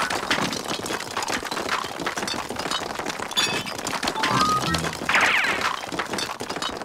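Cartoon orchestral score over a rapid clatter of small clinks and cracks, as ice chunks spurt out of a hose nozzle; a quick glide in the music comes about five seconds in.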